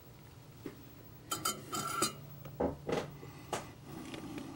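Small hard objects, such as tools or parts, clinking and knocking on the workbench: a short ringing clatter about a second and a half in, then three sharp knocks. A low steady hum sets in at about the same point as the clatter.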